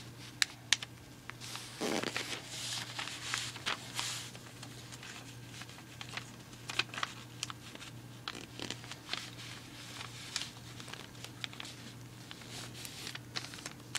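A sheet of printer paper being folded and creased by hand: scattered rustles, swishes and sharp crinkly ticks over a low steady hum.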